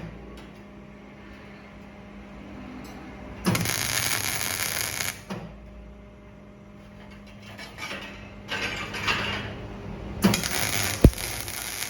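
Arc welding in short bursts of about a second and a half, two of them, each a dense crackling hiss, with a steady electrical hum between bursts. Irregular scraping sounds come between the bursts, and a sharp knock near the end.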